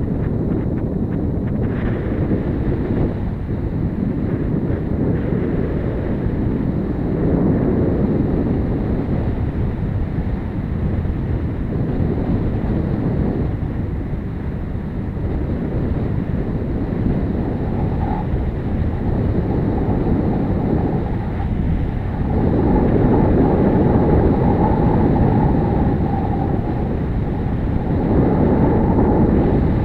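Wind rushing over the microphone on a moving touring motorcycle, with the bike's engine running underneath. The rush swells and eases in stretches, loudest about two-thirds of the way through and near the end, and a faint steady whine joins a little past halfway.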